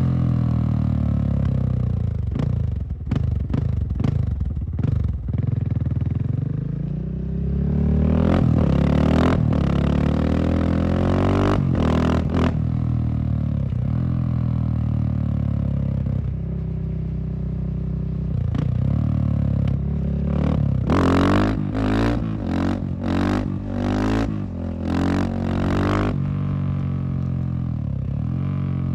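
Husqvarna SM610 supermoto's single-cylinder four-stroke engine running, its pitch rising and falling with the throttle, with short sharp throttle blips, a quick run of about six of them in the second half.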